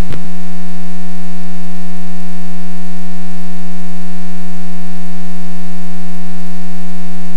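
Loud, steady electrical buzz on the cockpit intercom and radio audio: one low tone with a ladder of overtones, unchanging. It is typical of radio-transmit interference drowning the pilot's call to ground control. A click sounds just as it begins.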